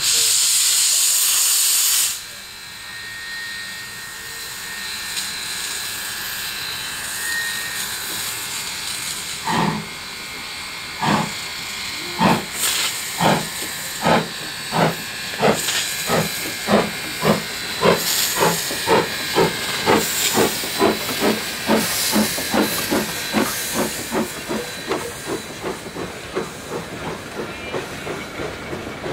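A loud burst of steam hiss for about two seconds, then steam locomotive PB15 448 starting away: its exhaust chuffs begin slowly about ten seconds in and quicken steadily as the train gathers speed.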